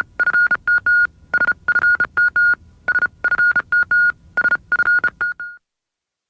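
Electronic beeps at one steady pitch, short and longer ones in an uneven Morse-code-like pattern, sounding with the SFM Entertainment logo and stopping about five and a half seconds in.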